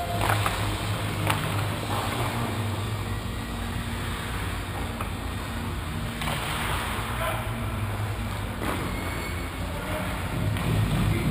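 Ice hockey rink ambience heard from the goalie's end: a steady low hum under a noisy wash of arena sound, with two sharp knocks in the first second and a half.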